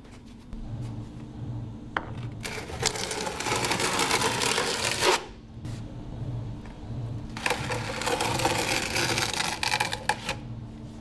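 Steel trowel scraping over mortar as it spreads it across the floor, in two long strokes that start about two seconds in and about seven seconds in.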